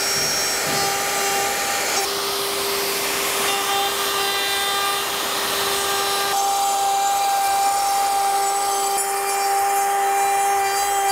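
Plunge router with an edge guide running at full speed, cutting a rabbet along the edge of a wooden panel: a steady motor whine over the noise of the bit in the wood.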